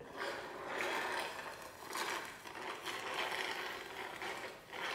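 Hot-wing sauce being slurped through a drinking straw from the bottom of a plastic takeout container: a noisy, gurgling suck that comes in uneven pulses.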